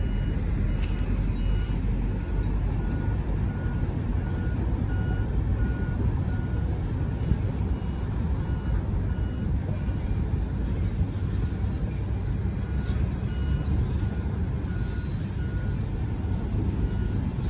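A vehicle's reversing alarm beeping steadily, about one short beep every three-quarters of a second, over a steady low rumble.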